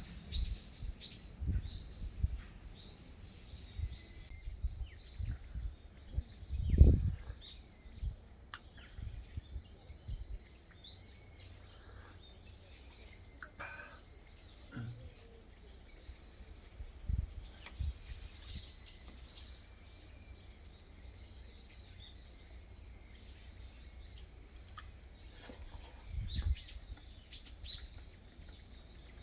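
Small birds chirping on and off, short high calls scattered throughout, with a few dull low thumps, the loudest about seven seconds in and another near the end.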